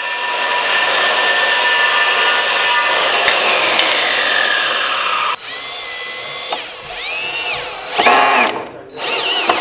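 A corded circular saw running through a wooden board, its pitch sliding down as it winds down. After a sudden change it gives way to a cordless drill/driver whirring against the wood, first steadily and then in three short trigger pulses that rise and fall in pitch.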